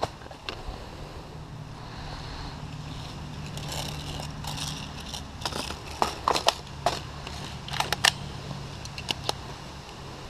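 Sharp plastic clicks and knocks of an airsoft rifle being handled at its magazine, in scattered groups over a steady low hum.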